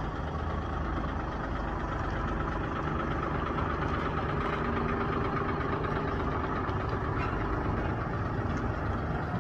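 Large diesel box truck's engine running as the truck pulls slowly away, a steady low rumble that swells a little in the middle as it passes.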